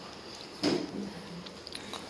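A woman's voice in the room, starting suddenly about half a second in and running on briefly.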